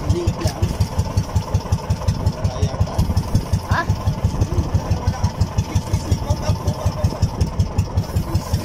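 A boat engine running steadily at trolling speed, with an even, low pulsing beat.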